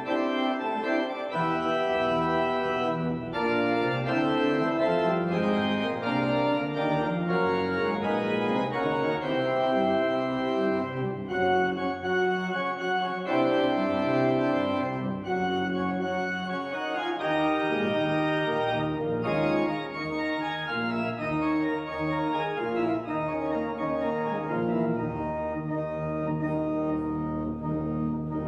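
Church organ playing sustained chords over a moving pedal bass line.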